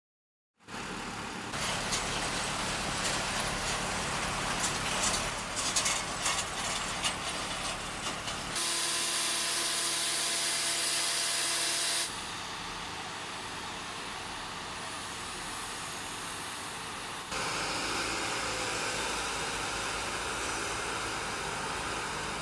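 Airport cargo-apron noise from ground-support vehicles and cargo loaders running, with clanks. For a few seconds in the middle a steady whine with loud hiss stands out. The sound changes abruptly several times where shots are cut together.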